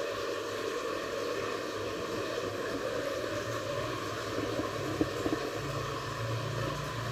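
Small electric motor of a toy boat running steadily, with a constant hiss. A lower hum grows louder after about four seconds, and there are a few soft clicks about five seconds in.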